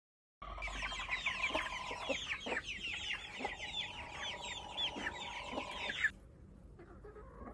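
Several hens clucking, many short calls overlapping. The calls drop much fainter about six seconds in.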